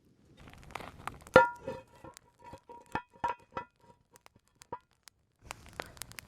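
Hard objects clinking together: one sharp ringing strike, then several lighter clinks that ring at the same pitch, like metal on metal.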